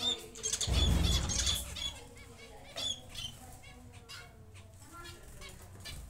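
Diamond doves flapping their wings in a wire cage, with a loud burst of wingbeats about a second in. Faint high chirps can be heard in between.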